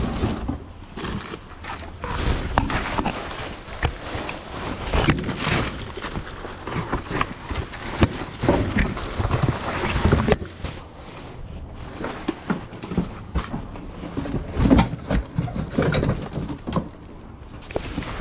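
Hands rummaging through a cardboard box of craft supplies: plastic packaging, foam inserts and cardboard rustling and knocking in uneven bursts, with scattered sharp clicks.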